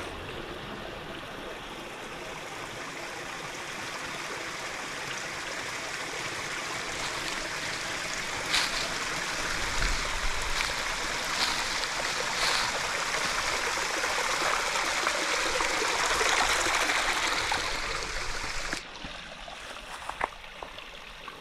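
Water of a creek cascade rushing and splashing over rock as a steady hiss, slowly growing louder and then suddenly much quieter near the end.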